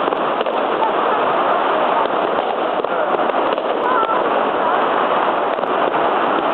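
Spring Festival firecrackers and fireworks going off all around, so many pops so close together that they run into one steady crackle, like heavy rain.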